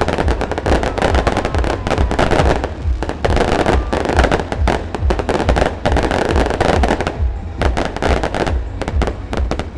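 Fireworks display: a rapid, dense barrage of bangs and crackling, easing to fewer, separate reports near the end.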